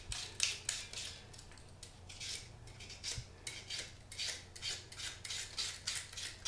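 A flat vegetable peeler shaving thin slices off a raw fennel bulb. It makes a run of short scraping strokes, about three a second, with a brief pause between one and two seconds in.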